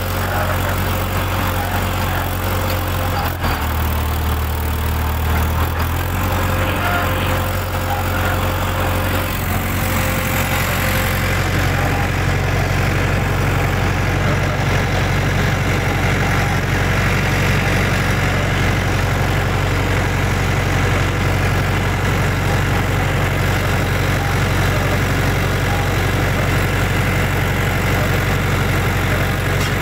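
Farm tractor engine running steadily with a deep, even hum while working a field. Its sound shifts about three and a half seconds in and again about eleven seconds in.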